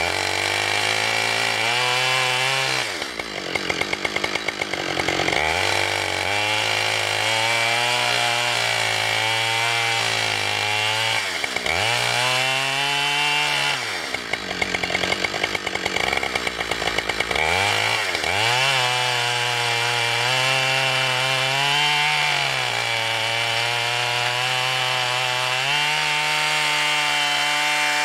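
Two-stroke gas chainsaw cutting into a fallen tree trunk at full throttle. Several times its engine note drops and swoops back up as the throttle is eased off and opened again.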